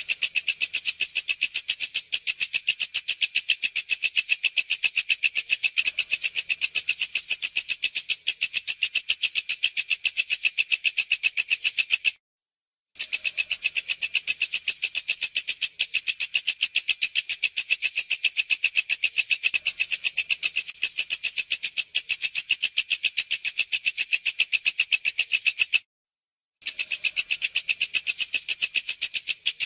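Walang kecek, a bush cricket (katydid), calling: a fast, high-pitched train of pulses, roughly nine to ten a second, that breaks off twice for about half a second and starts again.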